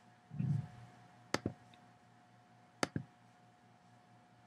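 Two sharp trackpad clicks about a second and a half apart, each a quick press-and-release pair. A brief low sound comes about half a second in.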